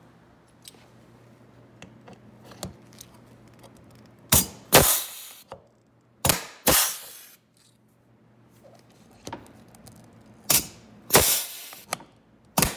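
Air-hydraulic pop-rivet gun setting steel-bodied, steel-stemmed large-flange rivets in a snowmobile track. It cycles four times at uneven intervals, the last right at the end. Each cycle is a short sharp burst followed by a longer hiss that tails off, with small handling clicks between.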